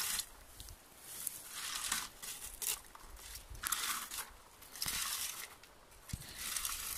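Plastic berry-picking rake combing through low blueberry shrubs in about six sweeps, each a short scratchy rustle of twigs and leaves, roughly one a second.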